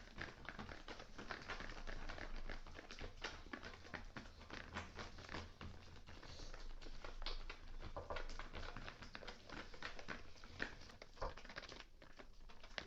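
Spoon stirring glue mixed with neon orange paint in a bowl for slime, heard as a faint, steady patter of small clicks and crackles.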